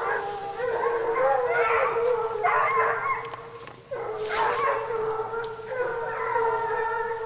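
A pack of hare hounds giving tongue together, several dogs' long overlapping baying cries, as they work a hare's line. The chorus dips briefly about four seconds in and then takes up again.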